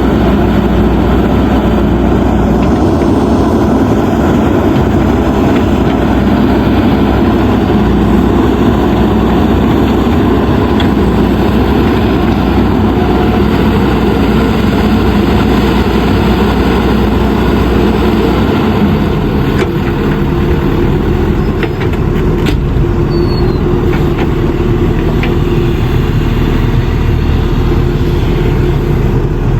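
JCB 3DX backhoe loader's diesel engine running steadily under work, with a few light knocks in the second half.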